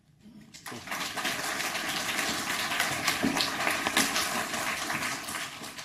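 Audience applauding, starting about half a second in and fading away near the end.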